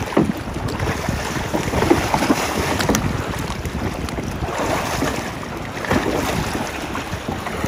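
Water splashing and sloshing as a swimmer in a drysuit hauls himself up onto a sit-on-top fishing kayak, with wind buffeting the microphone.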